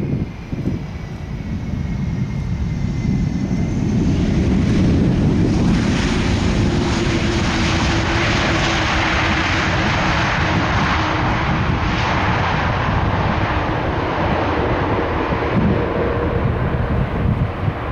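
Airbus A330-200 jet airliner landing: a thin engine whine falls in pitch during the first few seconds, then a loud, broad engine roar builds after touchdown and holds as the airliner slows on the runway, typical of reverse thrust on the landing roll.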